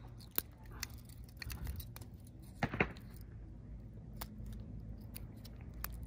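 Faint handling sounds of hands binding a stuffed squid bait with bait elastic: scattered small clicks and rustles over a steady low hum, with a brief louder sound about three seconds in.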